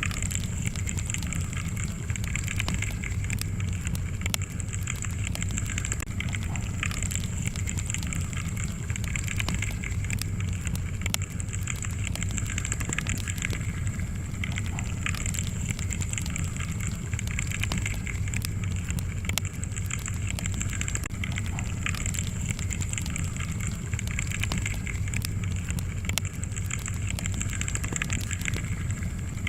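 Wood fire crackling: a steady stream of small, sharp pops and snaps over a constant low rumble of burning logs.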